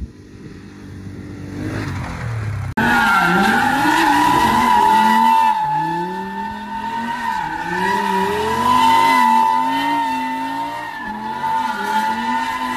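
Lamborghini Huracán V10 doing donuts: tyres squeal in a steady high screech while the engine revs rise and fall over and over. It starts abruptly about three seconds in, after a quieter stretch.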